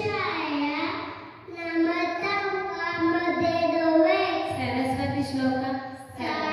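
A young boy chanting a shloka in a sing-song voice, with long held notes and gliding pitch, pausing briefly for breath about a second and a half in and again near the end.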